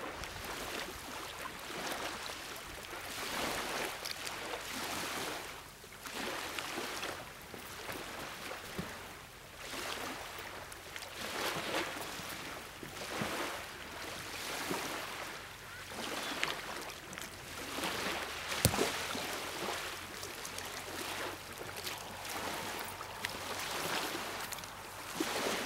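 Small waves washing onto a sand beach, the hiss swelling and fading every second or two. One sharp click about two-thirds of the way through.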